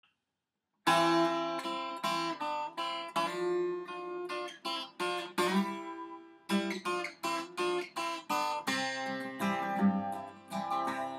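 Acoustic guitar playing the instrumental introduction to a folk song, a run of strummed and picked notes that starts about a second in after a moment of silence.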